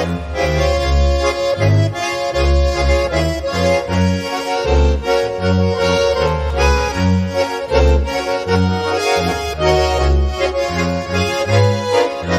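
Three Schwyzerörgeli, Swiss diatonic button accordions, and a double bass playing a polka in Ländler style. The accordions hold bright, reedy melody and chords over a bass line that moves between notes on the beat.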